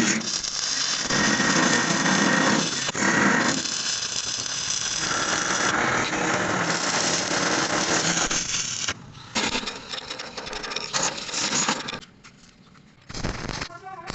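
Stick welding arc crackling and sizzling steadily for about nine seconds, then in shorter broken runs, with a brief lull and a loud burst near the end.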